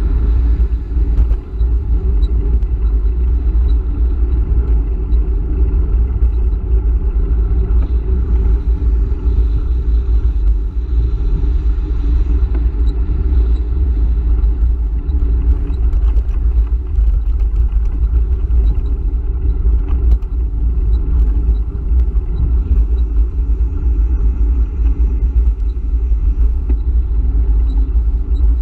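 Wind buffeting the microphone of a handlebar camera on a moving electric bike: a loud, steady low rumble, mixed with tyre noise and freeway traffic going by alongside.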